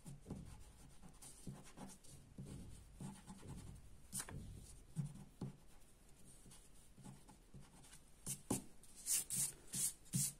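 Rubber eraser rubbing back and forth on drawing paper, erasing pencil guide lines, in irregular strokes. Near the end the strokes come quicker and sharper, several in a row.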